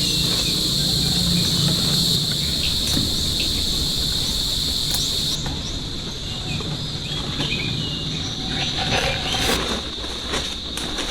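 Insect chorus in a swamp: a steady, high-pitched buzzing drone, loud at first and dropping to a lower level about five seconds in, with a few scattered small clicks and knocks in the second half.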